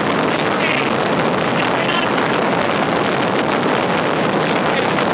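A mass barrage of firework rockets (voladores) exploding in rapid succession, the bangs packed so close that they merge into one dense, unbroken crackle at a steady loudness.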